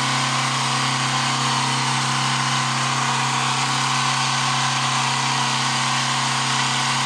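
Countertop jug blender running steadily at speed, puréeing cooked vegetables and stock into a thick soup.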